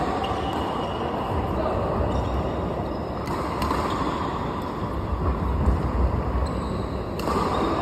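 Badminton rackets hitting a shuttlecock in a rally, heard as a few faint sharp taps over a steady low rumble.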